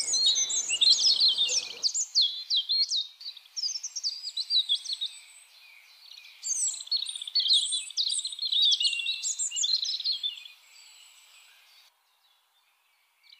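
European robin singing: quick, high warbling phrases and trills in several bursts separated by short pauses, stopping shortly before the end.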